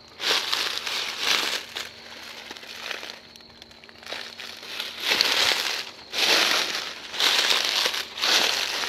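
Footsteps crunching through a thick layer of dry fallen leaves, about one step a second.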